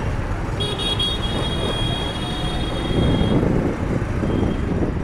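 Street traffic of motorcycles and scooters running, with a vehicle horn held for about two and a half seconds from about half a second in, and a brief fainter honk near the end.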